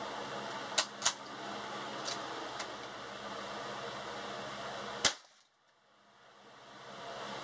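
Glenfield Model 20 bolt-action .22 rimfire rifle firing: two sharp cracks close together about a second in, two fainter cracks around two seconds in, and one loud crack about five seconds in.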